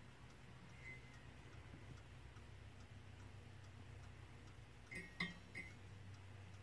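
Faint ticking of a mid-1900s West German Boulle-style bracket clock, Hoechler, under a low steady hum. About five seconds in come three small, sharp metallic clinks as the brass trumpet is handled against the gilt angel figure on top of the clock.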